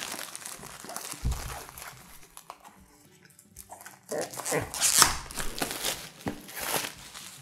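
Plastic shrink wrap being torn open and pulled off a board game box, crinkling, loudest in the second half as the wrap comes away. A dull thump about a second in as the box is set down on the wooden table.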